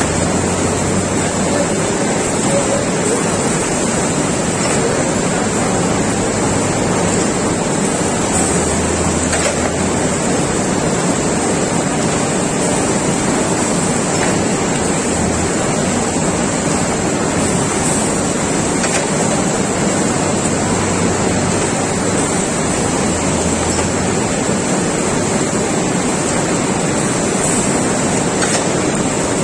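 Hollow clay brick extrusion line running steadily: the 200 hp extruder and the roller conveyor carrying freshly cut bricks make a loud, even machinery noise, with a faint click about every five seconds.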